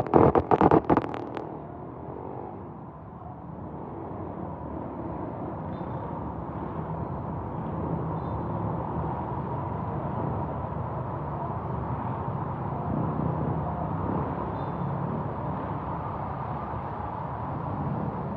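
Steady rumble of street traffic, with vehicle engines running at a flooded roadside. A burst of loud clattering knocks comes in the first second or so.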